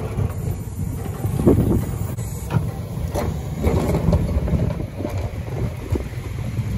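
Pickup truck with a front-mounted snow plow running steadily as the blade pushes through heavy snow, a low engine drone under the scraping hiss of snow, with a few short knocks in the first half.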